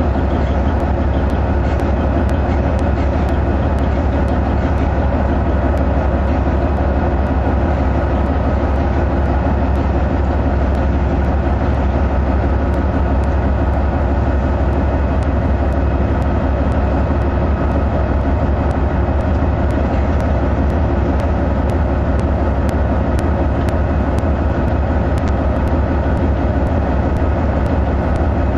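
GE C44AC diesel-electric locomotive engine running steadily under load while pulling a loaded coal train slowly through the unloader: a deep, constant drone with a steady higher whine over it.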